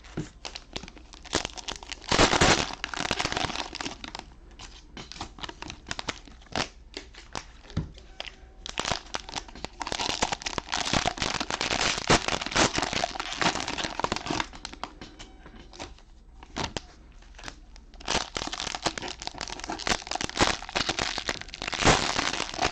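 Trading-card cello pack wrappers being torn open and crinkled: a dense, irregular run of plastic crackling and rustling.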